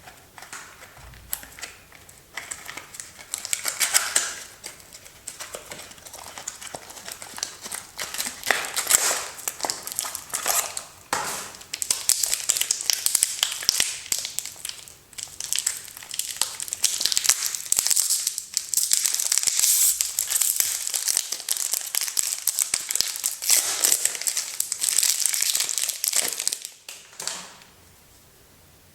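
A bar of soap's wrapper being opened by hand, the packaging crinkling and crackling close-up in quick, irregular rustles; it goes quiet about a second and a half before the end.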